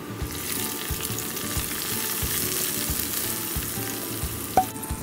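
Fried shallots and curry leaves in hot oil poured into simmering fish curry, sizzling steadily and easing off toward the end. A sharp knock comes near the end.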